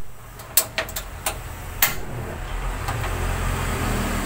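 Rinnai gas stove being lit: several sharp igniter clicks in the first two seconds, then the burner catches and the gas flame runs with a steady low rumble.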